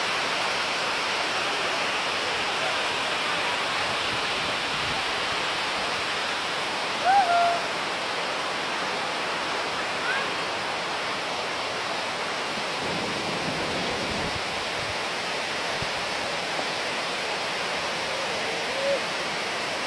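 Răchițele waterfall (Vălul Miresei), water falling more than 30 metres, rushing steadily. A few brief rising squeaks sound over it, the loudest about seven seconds in.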